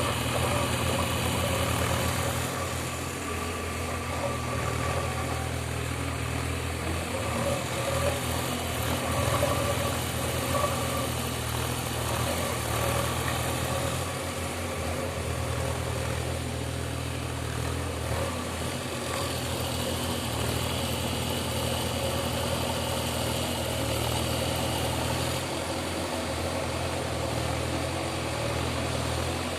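Diesel engine of a JCB earthmoving machine running steadily at low revs, with small swells in level about a third of the way in.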